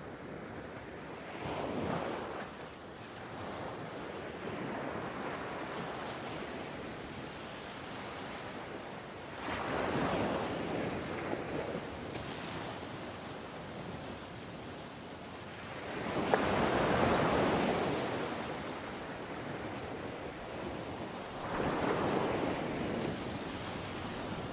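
Ocean waves surging in, with a steady wash between four louder swells of surf: about two seconds in, about ten seconds in, the loudest about seventeen seconds in, and again about twenty-two seconds in.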